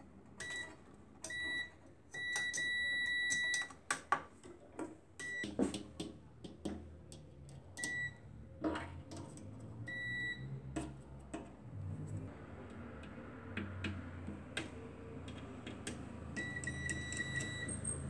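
Digital multimeter's continuity beeper sounding a steady high tone about seven times, mostly short beeps and twice held for over a second, as the test-probe tips touch the microwave oven's metal chassis and grounded parts. Sharp taps and scrapes of the probes on metal come between the beeps. Each beep marks an unbroken connection to ground.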